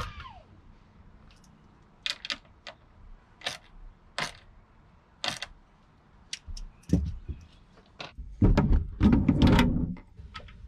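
Scattered knocks and clunks of carpeted wooden drawer-system panels being handled and fitted into place. About eight seconds in comes a louder stretch of heavier thuds and shuffling.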